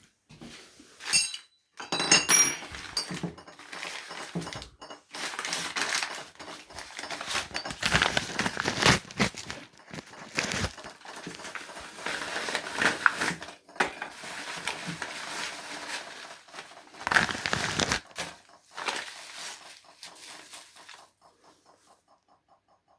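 Crinkling and rustling of plastic packaging with occasional light clinks as a new shower valve mixer cartridge is handled and unwrapped, the rustling stopping about two seconds before the end.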